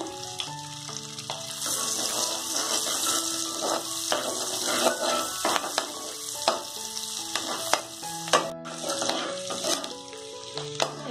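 Chopped onions sizzling in hot butter and oil in a nonstick pan, with a steady hiss. A perforated metal skimmer spoon stirring them gives scattered clicks and scrapes against the pan.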